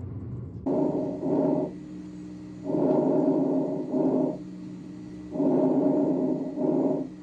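Breath sounds heard through a stethoscope: three breath cycles about two seconds apart, each a louder sound in two parts, with a faint steady hum between them.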